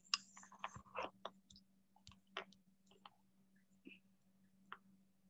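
Faint scattered clicks and small rustling noises, most of them in the first second and a half, over a low steady hum.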